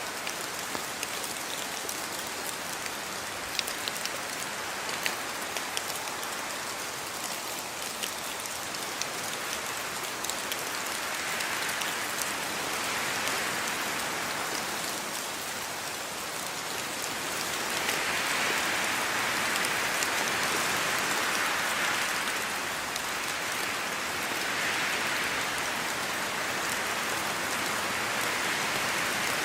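Steady rainfall, with single drops ticking sharply through the first third. The rain then swells louder in slow waves.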